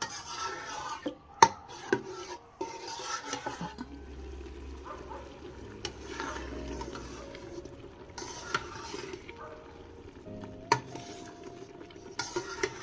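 Metal slotted spoon stirring a thick, simmering tomato sauce in an enamelled pot, scraping through the sauce with a few sharp clinks against the pot.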